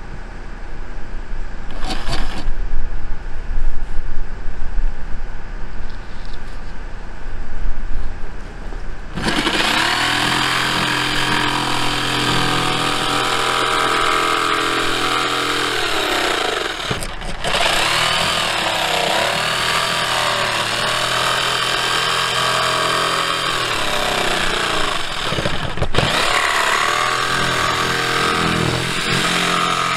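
Corded jigsaw cutting notches in grooved plywood siding. It starts about a third of the way in as a steady motor whine whose pitch sags at times under load, and it stops briefly twice. Before it starts there are low rumbling bumps on the microphone.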